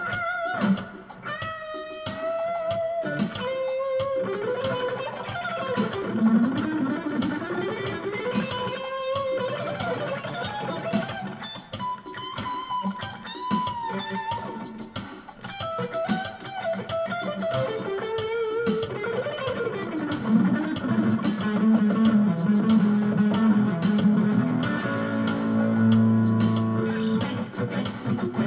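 Electric guitar with ceramic pickups played through a Roland Cube-10 amp on its crunch setting. It plays single-note lead lines with pitch bends and slides over an Alesis drum machine's Latin-funk groove. About two-thirds of the way in it moves to lower, held notes.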